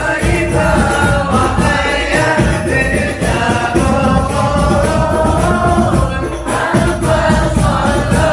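A group of voices singing an Islamic devotional song (sholawat) together, over loud, busy frame-drum and tambourine accompaniment.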